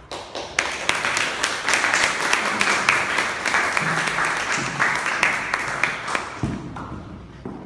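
Audience applauding, a dense patter of many hands clapping that starts about half a second in and dies away near the end.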